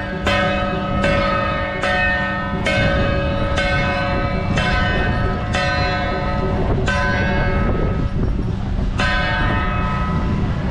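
A metal bell or gong struck about once a second, each stroke ringing on with many tones, the strokes spacing out over the last few seconds, over steady background noise from the crowd.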